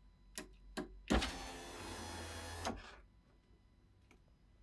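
Peugeot 508's electric window regulator motor driving the door glass along its track for about a second and a half, starting with a sharp knock and stopping with a click, after two light clicks. The door trim panel is off, so the mechanism is exposed. The freshly repaired regulator runs normally.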